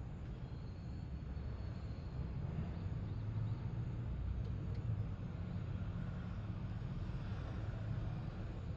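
Low, steady rumble of distant vehicle traffic, swelling a little through the middle.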